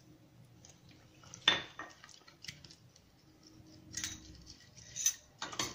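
Kitchen utensils clinking against a glass mixing bowl as sugar is tipped in from a plastic scraper and the egg mixture is whisked: one sharp clink about a second and a half in, then lighter taps and clicks near the end.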